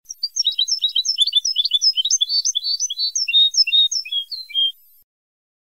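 European goldfinch singing one rapid phrase of short twittering and trilled notes, about four and a half seconds long, cutting off abruptly near the end. It is a recorded tutor song in the old Moroccan 'Ceuta' style, used to teach captive goldfinches to sing.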